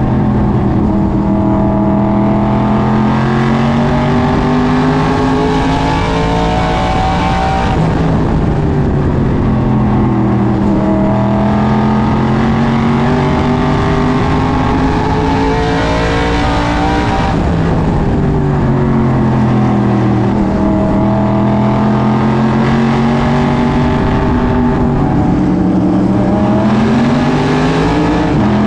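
SK Modified race car's V8 engine at racing speed, heard from inside the cockpit. The revs climb steadily along each straight, then drop off sharply as the throttle is lifted for the turns, about every nine to ten seconds, three times.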